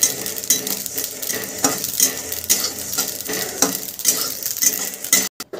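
Spatula stirring and scraping dry-roasted whole spice seeds (fenugreek, coriander, cumin and mustard) around a metal kadhai, the seeds rustling and the spatula scraping the pan in strokes about twice a second. The stirring cuts off abruptly near the end.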